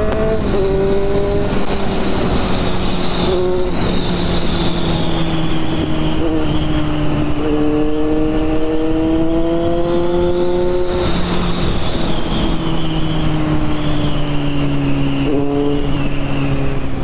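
Kawasaki Z900's inline-four engine running at road speed, heard from the rider's seat over heavy wind noise. Its note climbs and drops just after the start, then eases down, climbs again for a few seconds and eases off as the throttle is rolled on and off.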